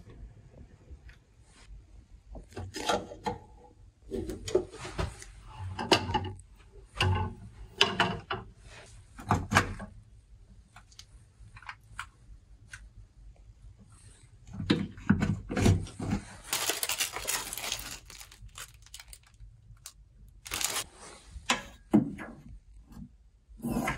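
Irregular rustling, crinkling and light knocks of things being handled, in bursts with short pauses, with a brief hiss about two-thirds of the way through.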